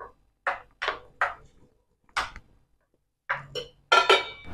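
Stainless-steel kitchenware clinking: a string of short separate knocks against a steel bowl, then a steel plate set over the bowl as a lid with a brief metallic ring near the end.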